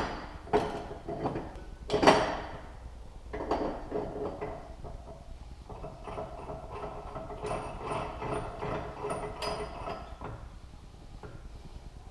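Sharp metal tool clinks, then several seconds of rhythmic mechanical clicking and creaking as a tool is worked to force the chainsaw's crankshaft out of its stiff crankcase bearing.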